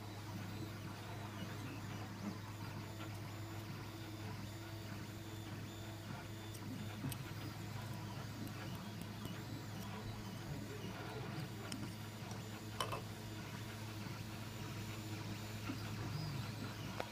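3D printer running as it prints the final layers, a steady low motor and fan hum with shifting stepper-motor sounds and a couple of faint clicks.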